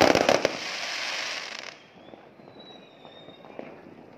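Fireworks shooting up from street level: a rapid run of cracks, then a hissing crackle that stops abruptly about a second and a half in, leaving only faint scattered pops.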